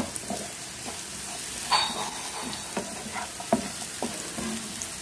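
Cubes of elephant foot yam frying in oil in a pan, sizzling steadily, while a wooden spatula stirs them, with several sharp knocks of the spatula against the pan, the loudest about two seconds in.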